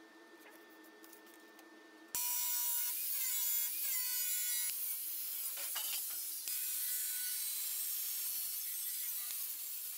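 Bosch angle grinder switching on about two seconds in and cutting a thin steel sheet: a high whine over a hiss of grinding, its pitch dipping as the cutting disc bites into the metal.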